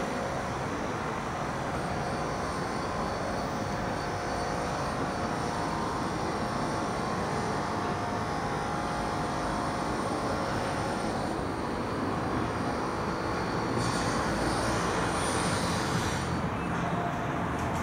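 Steady outdoor city background noise, a continuous hum of distant vehicles. It swells slightly and grows hissier about fourteen seconds in.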